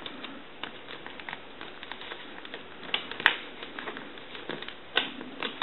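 Scattered light clicks and taps of small tools and parts being handled during soldering work, with a few sharper clicks about three seconds in and again near five seconds.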